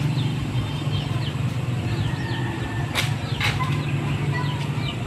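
Yard ambience: a steady low hum, small birds chirping in short falling notes, and two sharp knocks about half a second apart, some three seconds in.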